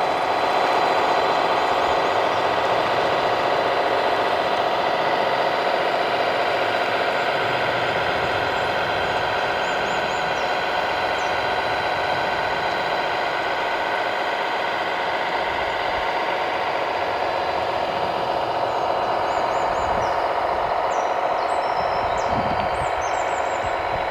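Radio-controlled model construction machinery running steadily: a constant mechanical whine and hum that holds the same pitch throughout. A few faint high chirps come in near the end.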